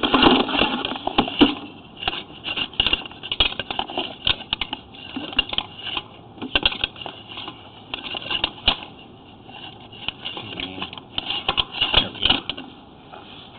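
Sewer inspection camera head and push rod being fed down a 4-inch ABS cleanout, knocking and scraping against the pipe in irregular clicks and rattles.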